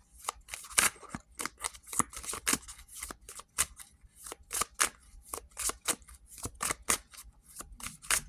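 A deck of oracle cards being shuffled by hand: a quick, uneven run of sharp papery slaps and flicks, about three or four a second.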